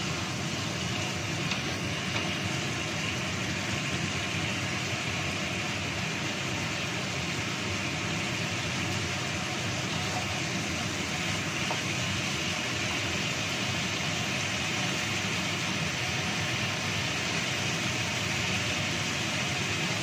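Chicken pieces and spice paste sizzling steadily in a wok, stirred with a wooden spatula.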